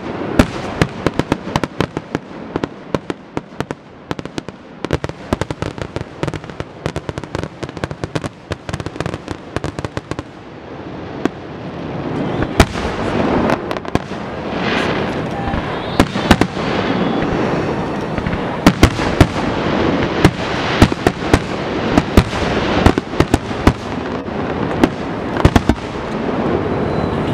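Fireworks display: a dense run of rapid crackling pops for about the first ten seconds, then a fuller rumble of aerial bursts with sharp bangs about once a second.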